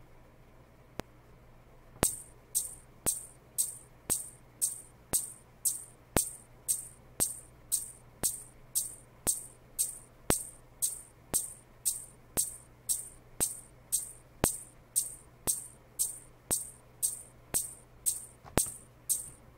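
Shaker drum sample from the Akai MPC Live's built-in kit, played in a steady beat of about two hits a second that starts about two seconds in. Two lone metronome clicks come before the first hit.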